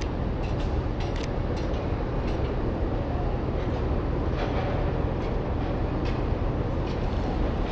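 Steady low rumble of city background noise, with a few faint clicks scattered through it.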